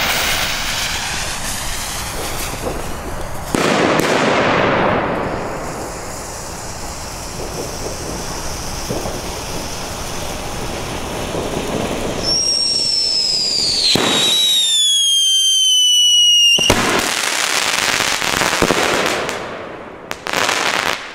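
Funke 3 Schlag Schocker Silbercracker-Rot firework running through its stages. A sparking fuse comes first, then a red bengal flare burning with a steady hiss. About twelve seconds in a whistle falls in pitch for about four seconds and cuts off sharply, followed by shots bursting into red stars with crackling.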